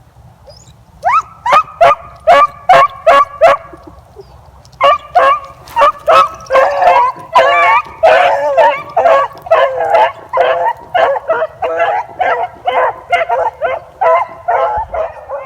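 Three beagles baying while running a rabbit's track. About a second in comes a quick run of sharp barks. From about five seconds in, several voices overlap in a steady, continuous chorus of barks and drawn-out bawls: the pack in full cry, driving the trail.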